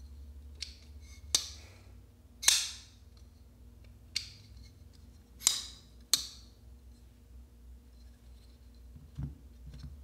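Folding knife's blade snapping open and shut several times: six sharp clicks of the blade deploying and locking, the loudest about two and a half seconds in. Near the end, two soft thuds as the knife is set down.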